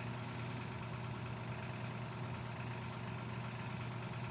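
A microwave oven's small cooling fan motor running with a steady mains hum.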